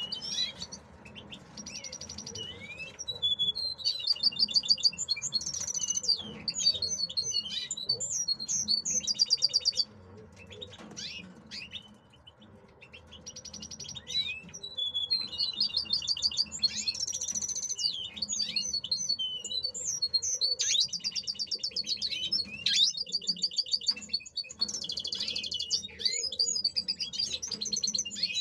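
Male European goldfinch singing: long runs of fast twittering, trilled and buzzy notes, with a lull about ten seconds in before the song starts again.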